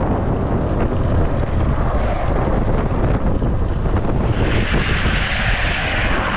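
Wind buffeting the microphone over the rumble of longboard wheels rolling fast on asphalt. About four seconds in, a loud hissing scrape builds and holds: the longboard sliding through a turn, its wheels and the rider's slide-glove puck scraping the pavement.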